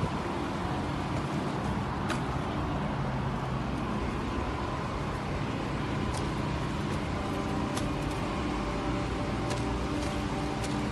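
Steady road traffic noise, an even rumble and hiss with no single vehicle standing out.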